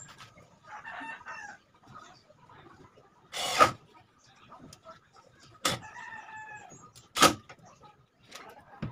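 A rooster crowing twice in the background. Between the crows comes a short burst from a cordless drill driving a cabinet hinge screw, then two sharp knocks on the wooden cabinet, which are the loudest sounds.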